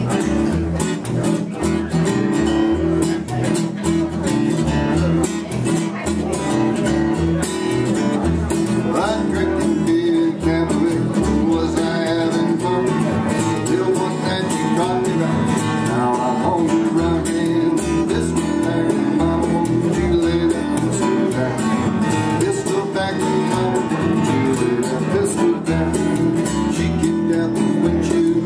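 Acoustic guitar strummed and upright bass plucked in a steady country beat, with a man singing over them.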